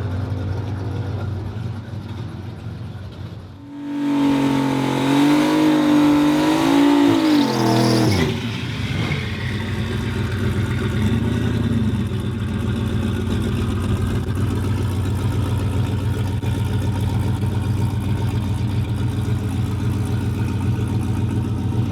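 Drag car's boosted V8 engine revving up and down in several wavering sweeps for about four seconds, then settling into a steady, lower drone.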